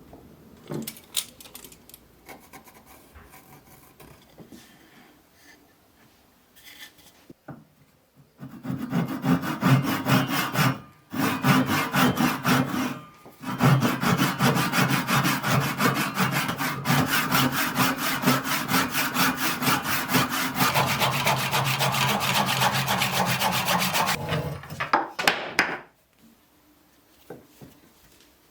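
A hand tool working wood in fast, even back-and-forth strokes, in three runs with short pauses, the last and longest ending near the end; a few light knocks come before and after.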